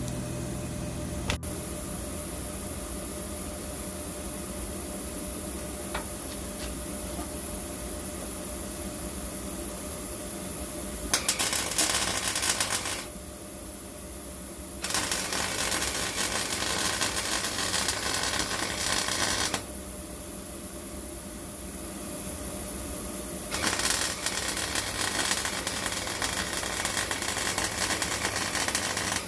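Car-body MIG welding: three runs of crackling, buzzing arc, the first short and the next two several seconds long, with pauses between them. A steady background hum fills the first stretch before the welding starts.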